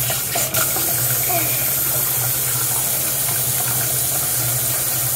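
Water running steadily from a bathroom washbasin tap into the sink.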